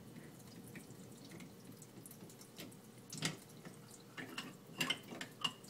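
Water draining from an opened sink drain pipe into a pot: a faint steady trickle, with a few drips and splashes about three seconds in and several more near the end.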